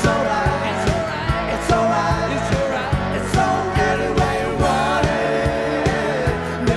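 Live rock band playing with a lead vocal sung over bass and steadily beating drums. It is a 1987 concert taped on an old two-head cassette deck, so the sound quality is somewhat degraded.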